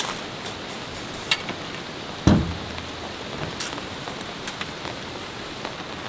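Steady rain with scattered heavy drops ticking close by, and one loud dull thump a little over two seconds in.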